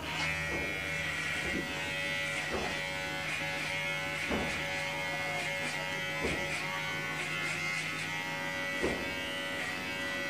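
Electric hair clipper buzzing steadily while cutting hair clipper-over-comb, with short faint strokes every second or two.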